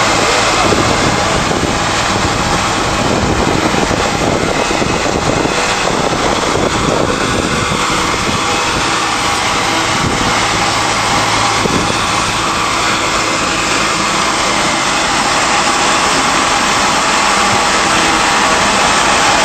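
Rotary tub-type stalk crusher running steadily under load, shredding crop stalks as they are fed in. The sound is a loud, even, dense noise with a low hum underneath.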